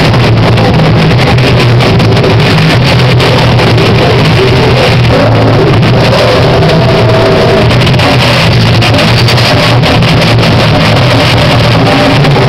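Slam death metal band playing live: distorted guitars, bass and drums at full tilt, with a vocalist. The recording is overloaded and constantly loud.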